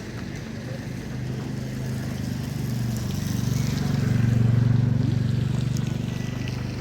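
A motor engine runs with a steady low hum, growing louder to a peak a little past the middle and then easing off, as a vehicle passing close by would.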